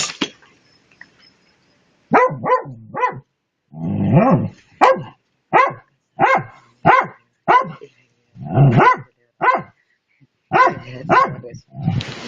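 A dog barking over and over after a quiet first two seconds. It gives short, sharp single barks and quick runs of two or three, with one longer, rougher bark about four seconds in.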